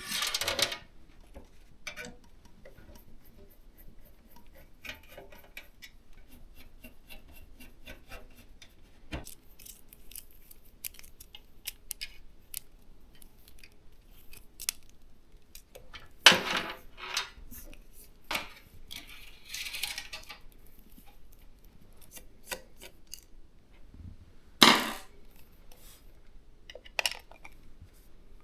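Hands handling PC hardware while an all-in-one liquid cooler is fitted: scattered small clicks, taps and rustles of plastic and metal parts, with louder clatters about 16 and 25 seconds in.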